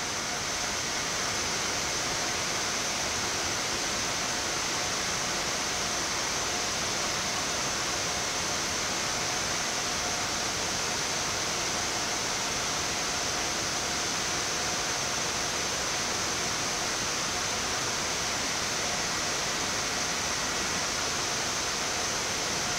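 Steady hiss of a Boeing 787-8 flight deck as the airliner taxis onto the runway and lines up with its engines at idle, with faint steady whine tones running through it.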